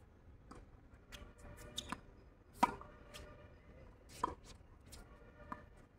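Tennis balls being hit and bouncing on a hard court: several sharp pops a second or so apart, the loudest about halfway through.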